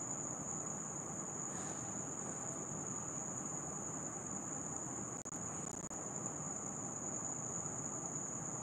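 Crickets chirping in a continuous high-pitched trill over a low background hiss, with a couple of faint clicks about five seconds in.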